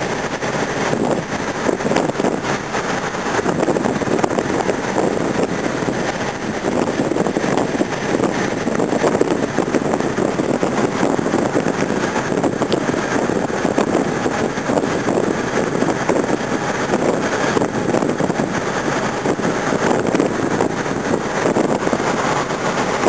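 Steady rush of wind through an open car window, mixed with the road noise of the car driving along.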